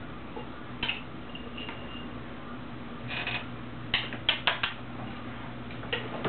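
A pet clambering about on its perch: scattered light clicks and taps, with a quick run of four about four seconds in, over a steady low hum.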